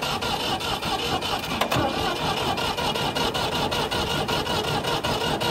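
Ford 3000 utility tractor engine idling steadily with an even beat.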